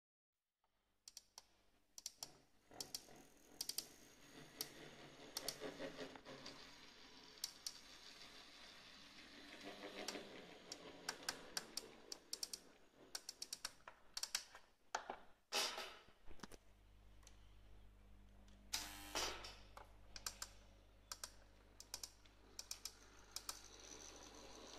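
Märklin Z gauge model train shunting on the layout: many light, irregular clicks and ticks of small wheels and couplings on the track. About two-thirds of the way in, a low steady hum sets in.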